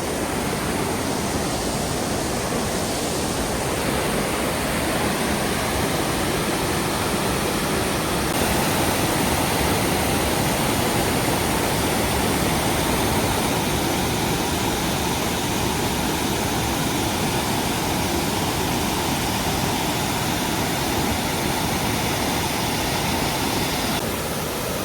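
Waterfall rushing steadily, a continuous loud wash of falling water that grows a little louder several seconds in.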